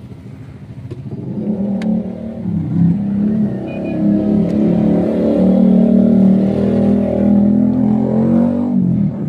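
Mitsubishi Strada's four-cylinder common-rail turbodiesel being revved: it climbs over the first few seconds, holds at raised revs, and drops back near the end. A turbo hose on it is torn, which the mechanic suspects of causing its black smoke.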